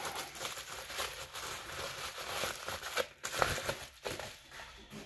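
Packaging rustling and crinkling as the next item is unwrapped by hand, with sharper crackles a little past three seconds in, then dying down near the end.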